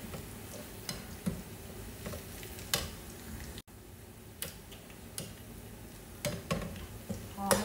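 Oil sizzling steadily in a frying pan as chopped food fries, with a spatula stirring it and clicking against the pan a few times.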